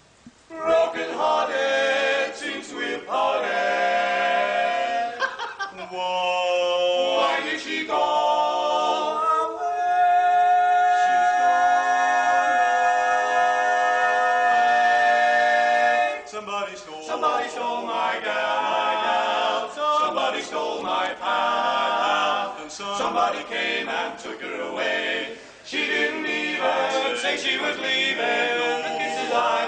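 Male vocal quartet singing a cappella in four-part harmony, with a long held chord from about ten to sixteen seconds in.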